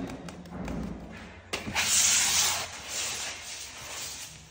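A filler knife scraping wood-floor joint filler (binder mixed with sanding dust) across parquet. It runs in repeated rough strokes that swell and fade, starting abruptly about a second and a half in after a quieter opening.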